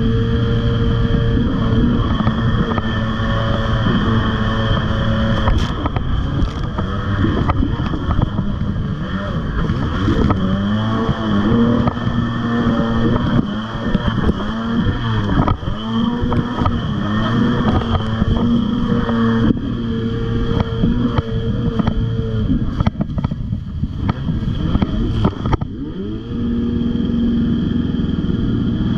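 Tiger Shark 640 jet ski's two-stroke engine running at speed, its note wavering and dipping as the craft skips over the chop, with water spray hissing against the hull and wind on the microphone. About three-quarters of the way through, the engine note falls away for a couple of seconds, then climbs back up.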